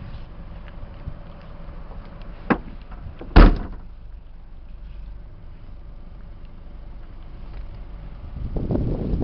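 Toyota RAV4 car door shut with a heavy thump about three and a half seconds in, preceded a second earlier by a sharp click.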